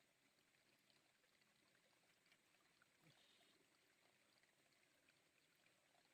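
Near silence: faint background hiss with a few tiny ticks.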